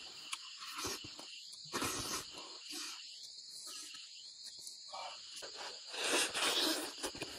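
Eating sounds: wet sucking, slurping and lip-smacking as cooked fish is eaten off the bone, loudest in a noisy stretch about six seconds in. Behind it runs a steady high-pitched chorus of insects.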